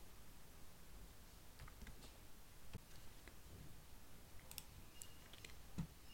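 A few faint computer mouse clicks over quiet room tone, the last and loudest near the end.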